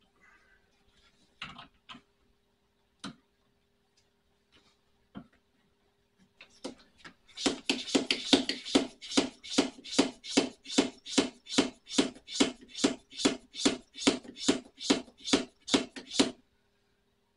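Hand pump of a cooling-system pressure tester being stroked, about three strokes a second, pushing air into the empty cooling system to bring it up to pressure. A few clicks come first, and the pumping starts about six seconds in and stops shortly before the end.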